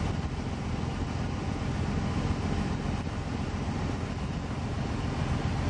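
Steady low rumble aboard a moving river cruise boat: the boat's engine and water noise mixed with wind buffeting the microphone.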